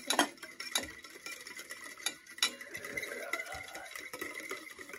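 Metal spoons stirring and scraping around stainless steel bowls, with a few sharp clinks of spoon on bowl, the loudest just after the start. Several spoons are beating a mix of coffee, sugar and hot water by hand to whip it.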